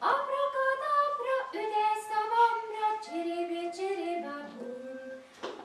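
A woman singing a slow melody in held notes that step up and down.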